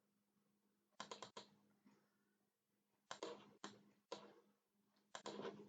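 Faint clicking at a computer while operating CAD software: a quick run of about four clicks a second in, single clicks around three, three and a half and four seconds in, and another quick run near the end.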